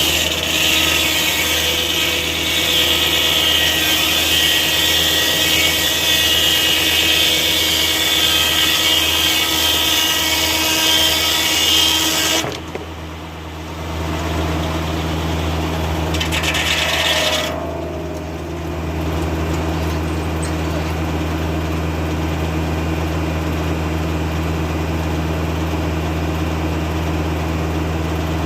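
Foley-Belsaw circular sawmill blade cutting through an oak log for about twelve seconds, then a short second cut, over the steady running of the Kubota tractor diesel that drives the mill. After the cuts the engine and the freely spinning blade keep running alone.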